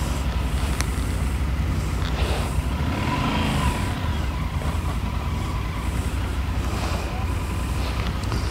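Adventure motorcycle engine running as the bike rolls slowly at low revs: a steady low rumble, with a brief higher tone about three seconds in.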